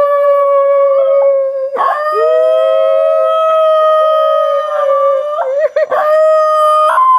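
Ten-month-old basenji howling: long held notes at a steady pitch, each broken by a short wavering glide, first about two seconds in and again near the end.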